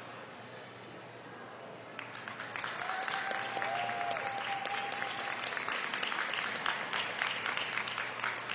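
Audience applauding: scattered clapping starts about two seconds in and builds into steady applause. A single held high note sounds over it for a couple of seconds.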